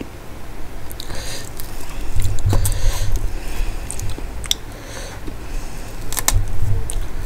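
Close-miked eating sounds: fingers squishing and mixing rice with mashed Bombay duck curry on a metal plate, with chewing and many short wet clicks. There are two heavier low thuds, one about two and a half seconds in and one near the end.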